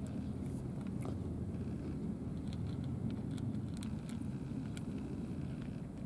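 Two cats chewing food from small plastic dishes, heard as small irregular clicks and smacks, over a steady low background rumble.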